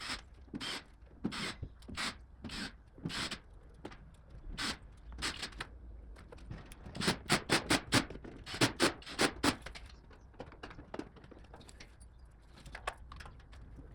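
Irregular short clicks and taps of hand work on the motorcycle's plastic airbox and air filter parts, with a quick run of about eight clicks near the middle.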